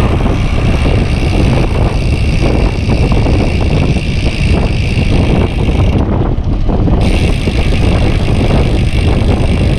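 Novatek D712SB rear freehub buzzing as the bike coasts, a steady high whirr of its pawls (the "cricket" sound), which breaks off for about a second past the middle and then resumes. Heavy wind rumble on the microphone from riding runs underneath.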